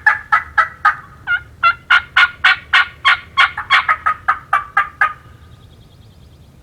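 A long, fast run of loud turkey yelps, about three to four a second, evenly spaced, stopping abruptly about five seconds in.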